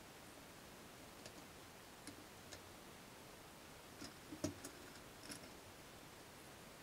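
A few light, scattered clicks and knocks from walnut and maple strips and pipe clamps being handled and set on a workbench, the loudest about four and a half seconds in, over near silence.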